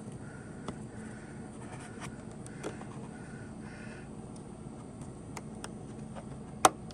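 A screwdriver tip working a plastic push-pin trim clip on a car's rocker molding: faint scrapes and small ticks, then one sharp plastic click near the end as the clip's centre pin releases.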